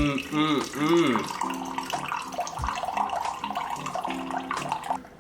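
Liquid running from a tap fitted into a baked pumpkin and pouring steadily into a cup, over background music.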